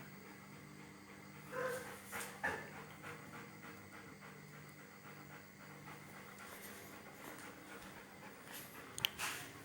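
A dog panting softly while it waits, with a few brief louder sounds about two seconds in and a sharp click near the end.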